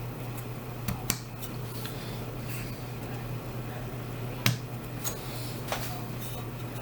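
A few sharp, scattered clicks and taps of a chip and small tools being handled on a workbench, over a steady low electrical hum.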